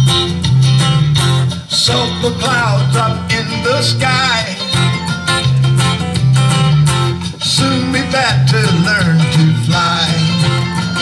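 Acoustic guitar strummed in a steady rhythm, with a wavering sung melody over it in places.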